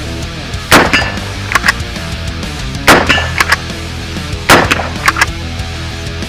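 Three rifle shots from a Warwick Firearms WFA1 in .300 Blackout, about two seconds apart, each followed by a few smaller sharp clacks, over a steady heavy-metal music bed.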